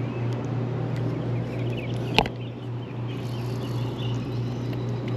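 Birds calling in short chirps over a steady low hum, with one sharp click about two seconds in.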